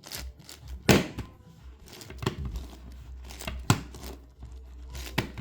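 Plastic 11x11x11 Rubik's cube being turned by hand: irregular clicks and scrapes of its layers rotating, the loudest about a second in.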